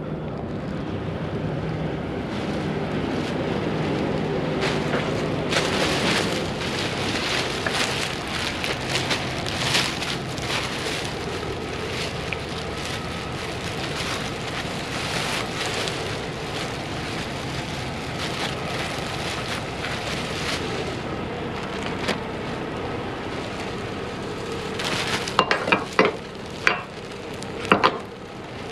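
Clear plastic sheeting pulled and crumpled by hand, a dense crinkling rustle, with a few sharp slaps near the end.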